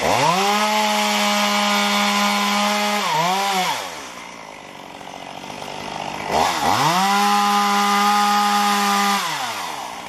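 Chainsaw revving up to full throttle and holding a steady high pitch for about three seconds, blipping once and dropping back. About two seconds later it revs up again for about three seconds before falling off to idle.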